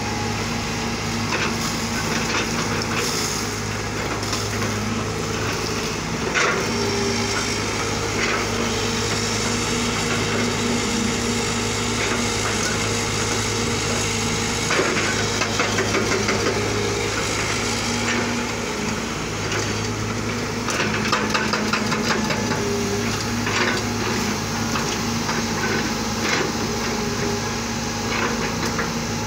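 JCB wheeled excavator's diesel engine running steadily under hydraulic load, its pitch rising at times as the arm works. The steel bucket scrapes and knocks against soil and stones at scattered moments.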